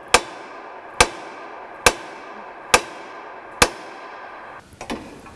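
Hammer blows on the steel suspension parts at a Honda Element's lower ball joint, to shock the ball joint loose: five sharp metallic strikes a bit under a second apart, each ringing briefly, followed by a couple of lighter knocks near the end.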